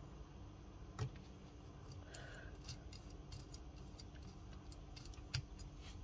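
Faint clicks and taps of fingers handling a small homemade PCB soldering station as it is being opened up, with a louder knock about a second in and a few sharp ticks after.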